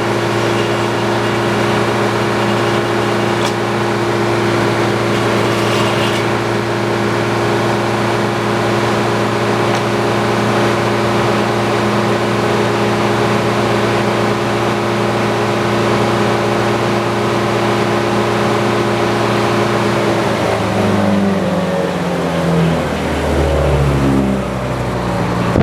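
Antique circular sawmill running steadily, its engine and spinning saw blade making a constant hum. About 20 seconds in the pitch starts to waver and drop, with the machine's note rising and falling in the last few seconds.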